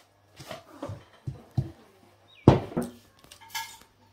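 Plates and cutlery clattering and knocking during a meal: several short clinks and knocks, the loudest about two and a half seconds in.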